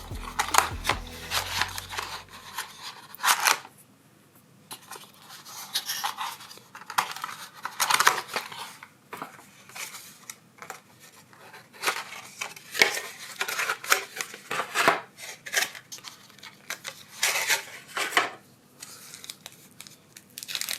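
Plastic packaging of a replacement smartphone battery crinkling and rustling as it is handled and opened, in short irregular bursts with quiet gaps between.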